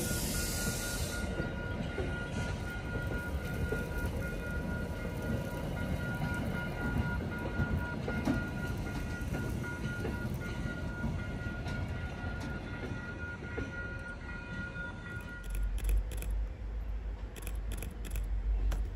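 Commuter coaches and an HSP46 diesel locomotive rolling past a grade crossing: a steady rumble of wheels on rail, with the crossing warning bell ringing throughout. About fifteen seconds in this gives way to a deeper low rumble.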